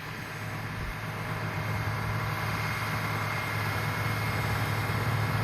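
Tractor engine running steadily under load, a low even hum that grows a little louder over the first couple of seconds and then holds.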